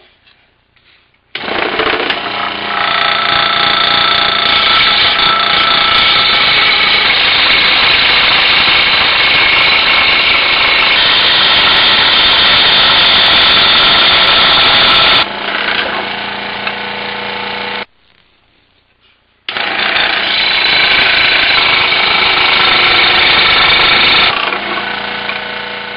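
Scroll saw running as it cuts a plywood jigsaw puzzle, a loud, steady machine sound with a fast reciprocating buzz. It starts about a second in and runs for over ten seconds, drops lower, and stops. It starts again a moment later and winds down near the end.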